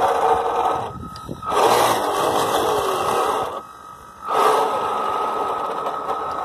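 Twin Kyosho Le Mans 360 ST electric motors of an RC model boat, turning through a 2:1 drive, running with a steady whine. The throttle is cut twice, about a second in and again about three and a half seconds in, and opened back up with a surge each time.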